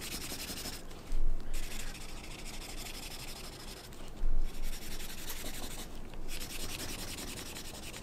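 Felt-tip marker scribbling rapidly back and forth on paper, colouring in an area, with two dull bumps about a second and four seconds in.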